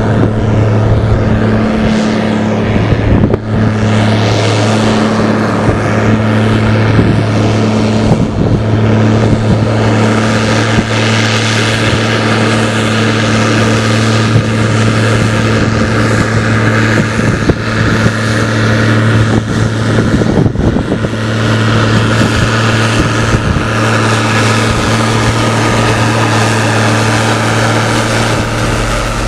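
Case IH 1455 XL tractor's six-cylinder turbo diesel running hard and steady under heavy load through a stainless straight-pipe exhaust, pulling a Maschio subsoiler working about 60 cm deep. A loud exhaust note holds one even pitch.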